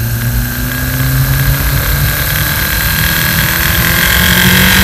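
1.8-litre turbocharged four-cylinder engine pulling under gradually increasing throttle in second gear, its pitch rising steadily as the revs climb and its level slowly growing.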